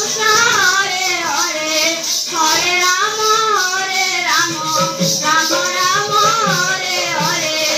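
Devotional kirtan music: high women's voices singing a gliding, ornamented chant melody over jingling percussion that keeps a steady beat.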